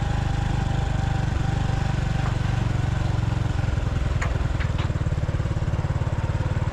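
Motorbike engine running steadily at low speed as the bike is ridden, with the rush of wind and road noise on the microphone.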